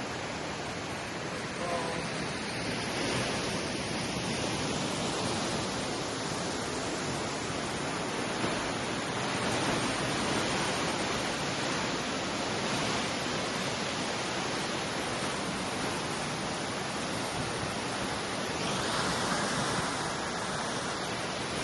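Large waterfall pouring: a steady, unbroken rush of falling water.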